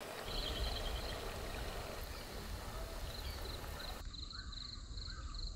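Masala vadas deep-frying in hot oil, a steady sizzling hiss that cuts off suddenly about four seconds in. A faint repeated chirping runs underneath.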